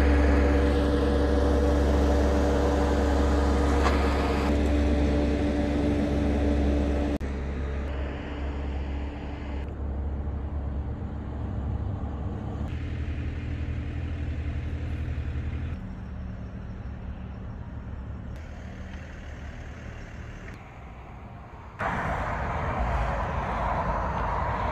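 Motor vehicle traffic sounds: a steady low engine rumble with a held hum, loudest in the first few seconds. After that the background shifts abruptly several times between quieter rumbling, with a louder rushing noise near the end.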